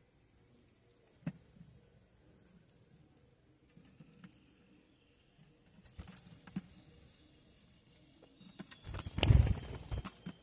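Sayaca tanager feeding at a feeder tray: scattered light pecking clicks, then a loud flurry of wingbeats close by about nine seconds in, lasting about a second, as a bird flies in.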